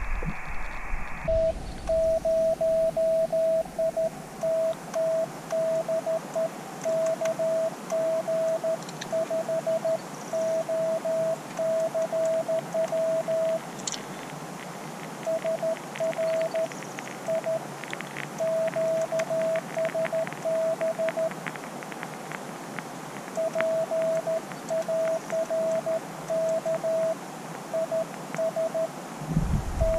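Morse code (CW) from an Elecraft KX2 portable ham transceiver: a single steady beep keyed on and off in dots and dashes, with a couple of short pauses, over receiver hiss and scattered static crackles.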